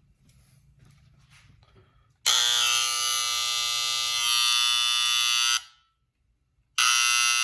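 Andis Master clipper's magnetic motor switched on after a few faint clicks, running with a loud steady buzz, cut off for about a second, then switched on again. The buzz is still there after a deep clean and reassembly, and the owner means to cure it by tuning the clipper.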